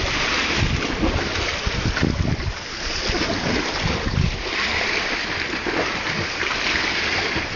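Wind buffeting the microphone in uneven gusts, over the steady wash of the sea.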